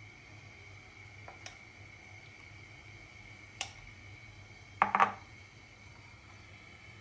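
A metal spoon clinking against a steel plate and a glass bowl while dhokla batter is spooned out: a couple of light taps about one and a half seconds in, another in the middle, and a louder cluster of clinks about five seconds in, over a faint steady hum.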